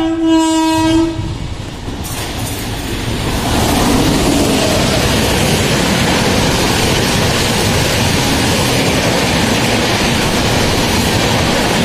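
Train horn blast that cuts off about a second in, then the Howrah-Ernakulam Antyodaya Superfast Express running past: the rush of its coaches and wheels on the rails builds over a couple of seconds and stays loud and steady.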